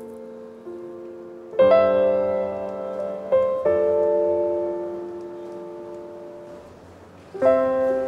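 Slow background piano music: a few chords struck one at a time, each left to ring and fade. The loudest comes about a second and a half in, with others near three and a half seconds and near the end.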